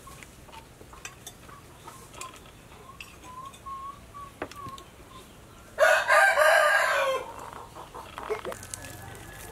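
A rooster crowing once, loud, for about a second and a half a little past the middle. Before it a chicken clucks softly in a row of short notes, with a few light clicks.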